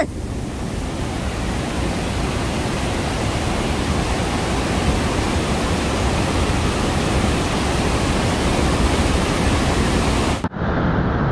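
Steady rushing noise of Niagara Falls' falling water, even and unbroken. About ten seconds in it cuts off abruptly into a duller rush of the same kind.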